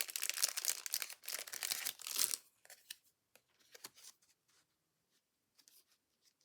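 Paper crafting materials being handled, with close crackling and crinkling for about two and a half seconds, then a few light rustles and taps.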